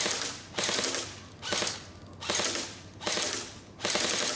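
Airsoft gun firing on full automatic in about six short bursts, each roughly half a second of rapid rattling shots with brief pauses between.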